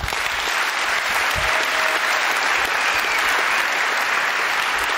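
A large audience applauding with steady clapping, in answer to the lecturer's point.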